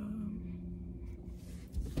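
Steady low hum inside a car cabin, with a brief hummed voice sound at the start and a soft knock near the end.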